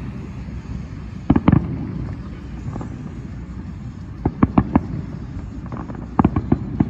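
Fireworks going off: three clusters of sharp bangs, about a second in, around four and a half seconds in and near the end, over a steady low background noise.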